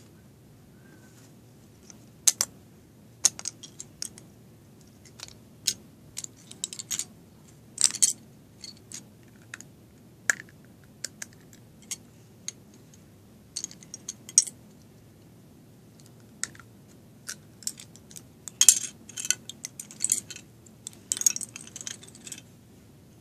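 Plastic Lego bricks clicking and clattering as they are handled and pressed together: irregular sharp clicks, some in quick clusters, over a steady low hum.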